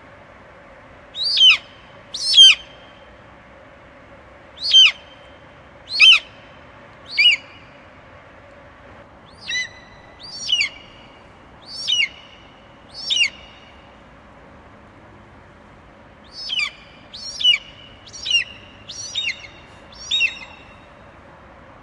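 Eagle calling: short, high-pitched cries that fall sharply in pitch, given in runs of two to five with pauses between, over a faint steady hum.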